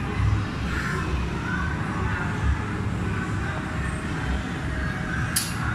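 Indoor play-centre background noise: a steady low rumble with faint, distant voices, and one sharp click near the end.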